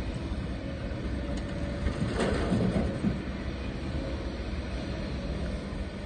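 Kobelco SK140 excavator's diesel engine running steadily under hydraulic load as the machine swings. About two seconds in comes a louder clatter lasting about a second, as rock tumbles from the bucket into the truck bed.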